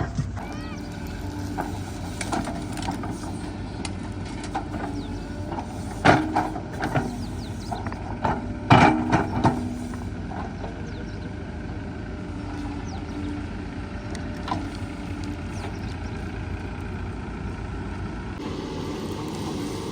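Heavy diesel machinery engine running steadily, with a few loud metallic knocks and thumps about six seconds in and again around nine seconds in. The engine note shifts near the end.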